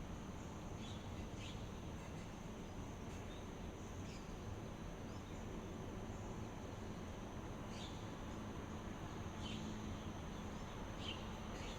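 Outdoor nature ambience: a steady high-pitched insect drone with scattered short bird chirps over an even low hiss.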